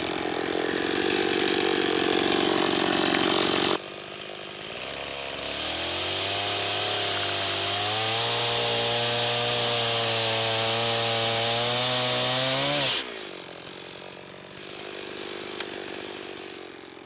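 Chainsaw cutting up from underneath a suspended log (an underbuck). The saw runs at full speed, drops off suddenly about four seconds in, then climbs back to high revs and holds there. About four seconds before the end it falls away abruptly to a quieter low running.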